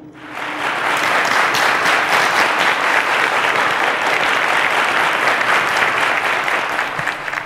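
Studio audience applauding, building over the first second, holding steady, then easing slightly near the end.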